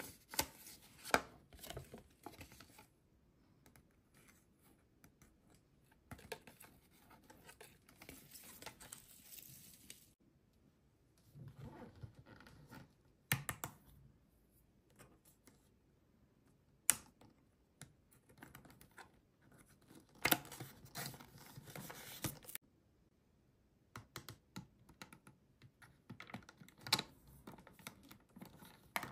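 Close handling of a plastic toy and its packaging: a paper-foil wrapper crinkling, then fingernails tapping, clicking and scratching on a hard plastic potion bottle, with a few sharper clicks.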